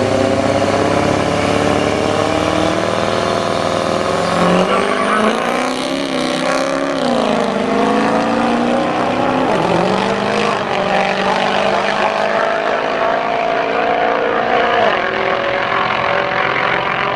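Two diesel pickup trucks, a Cummins-powered Dodge Ram and a Ford Power Stroke, run on the start line, then launch about four seconds in and accelerate hard down the drag strip. Their engine pitch climbs and falls back at each gear change.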